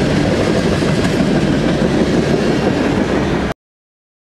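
Freight train of refrigerated boxcars rolling past at track side, a steady loud rumble of wheels on rail. It cuts off abruptly to silence about three and a half seconds in.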